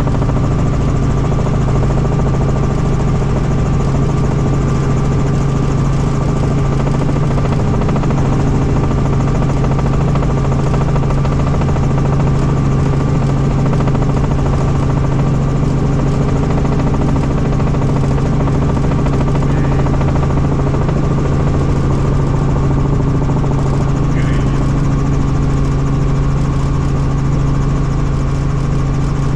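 Helicopter in flight: the steady, unbroken drone of rotor and engine, with a strong low hum and a set of fixed higher tones.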